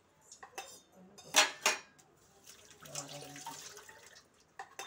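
Cooking oil being poured into a stainless-steel kadai, with two sharp metal clinks about a second and a half in and a trickling hiss after them.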